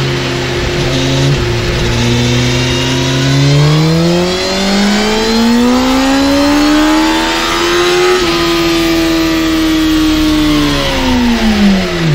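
Suzuki Katana's 999 cc inline-four engine, on its stock exhaust, making a power run on a chassis dynamometer. The revs hold low for a moment, climb smoothly for about six seconds, then the throttle eases and the pitch falls away near the end.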